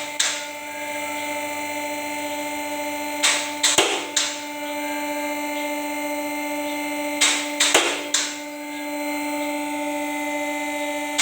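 A steady hum runs throughout. About every four seconds there is a cluster of three or four sharp clicks or knocks, as from hand-tool work on the car.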